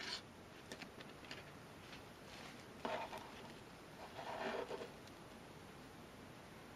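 Faint handling sounds of fabric flowers with wire coils being set down and arranged on a wooden tabletop: a few light taps and rustles, with two slightly louder rustles around three and four and a half seconds in.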